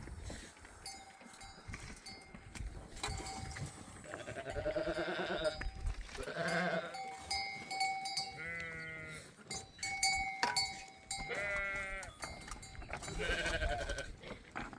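A flock of sheep and goats bleating, about five wavering calls, with the animals' bells clinking and ringing between them.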